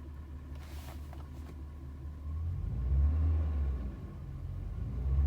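BMW M62B44 4.4-litre V8 idling, then revved briefly about two seconds in and let drop back to idle. The engine has a knock that the owner puts down to piston slap against the cylinder wall on load change.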